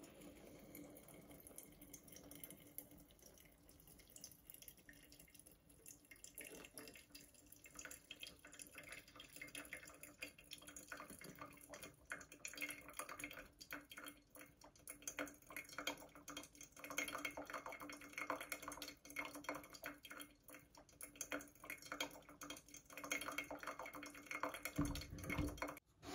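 Hot water poured in a thin stream from a gooseneck kettle onto coffee grounds in a paper filter, with brewed coffee trickling and dripping into the glass server below; the trickling grows louder from about halfway. A brief low bump comes near the end.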